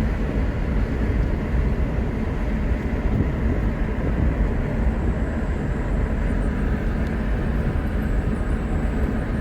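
Steady low rumble of a vehicle travelling along a road, engine and road noise with no breaks.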